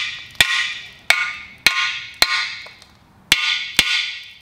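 A hammer tapping the side of a bare cast-iron Mopar small-block engine block, six sharp strikes at an uneven pace, each leaving a bright metallic ring that fades quickly. The tapping is meant to shake rust and scale chunks loose inside the block's water jackets before it is boiled clean.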